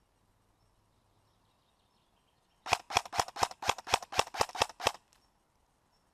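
Airsoft gun firing a quick string of about ten sharp shots, evenly spaced at roughly four to five a second, starting about two and a half seconds in and stopping near the end.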